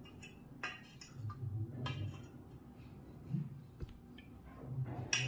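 Steel spoon clinking and scraping against a stainless steel pot as dumplings in milk are spooned out, with a few separate light clicks, the sharpest near the end.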